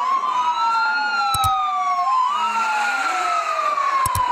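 Emergency-vehicle sirens of a fire-engine convoy wailing together, at least two out of step with each other, each rising quickly and falling slowly over about two seconds. Two short clicks break in, about a second and a half in and again near the end.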